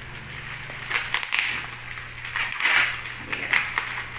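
Plastic packaging crinkling and rustling as it is handled and opened, in irregular bursts with small clicks, starting about a second in.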